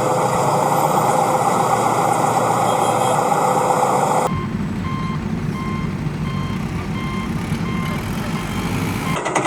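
Heavy vehicle engine running steadily. About four seconds in, it drops to a lower rumble, and a reversing alarm begins beeping at an even pace over it.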